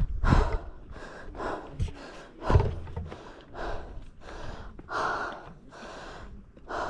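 A person breathing hard, quick noisy breaths in and out at about two a second: out of breath from a steep climb. A few low thumps sound in the first few seconds.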